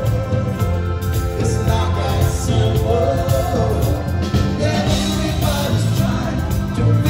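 Live band playing, with a male lead singer singing over guitar, bass and drums.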